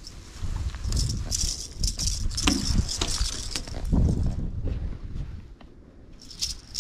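Freshly landed white bass flopping on wooden pier decking, the lipless crankbait hooked in it rattling and clattering, with jacket fabric rustling against the camera. The irregular clatter lasts about four seconds and then dies down to a few light clicks near the end.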